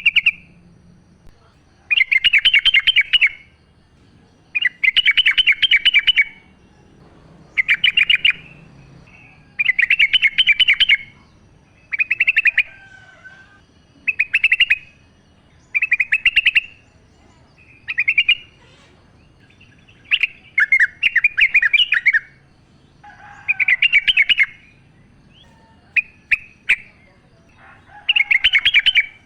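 Yellow-vented bulbul (trucukan) singing wild: loud, short bubbly phrases of rapid chattering notes, repeated about every two seconds.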